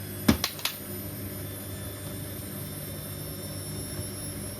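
Washing machine running with a steady motor hum, near the end of a drain-and-spin cycle. Three quick knocks come within half a second, about a third of a second in.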